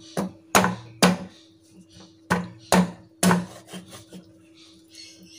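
Cleaver chopping down through a whole free-range rooster on a wooden cutting board, splitting the tough carcass through the bone: about six hard chops in the first three and a half seconds, then a few lighter taps.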